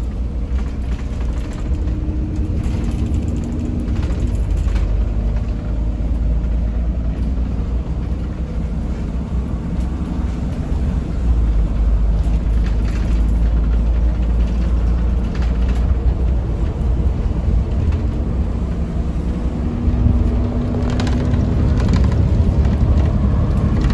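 Volvo B9TL double-decker bus under way, heard from the upper deck: a steady low rumble from its six-cylinder diesel and the road, with a humming engine tone and a few faint rattles from the body.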